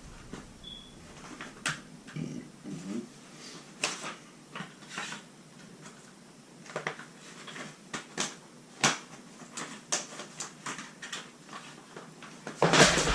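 Scattered light clicks and knocks of metal parts and tools being handled at a gas water heater's burner area, with a short, loud burst of noise near the end.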